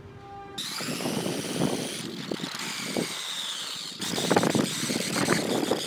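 Small electric motor and gears of a radio-controlled car chassis whining, the pitch rising and falling as it drives, over a rough grinding rolling noise. It starts suddenly about half a second in, after a steady held tone, and jumps louder about four seconds in.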